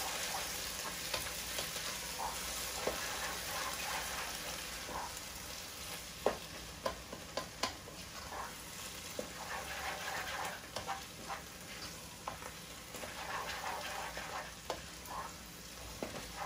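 Chopped onion, garlic and ginger sizzling in oil in a nonstick pot while being stirred with a wooden spoon, the spoon knocking against the pot now and then with short clicks.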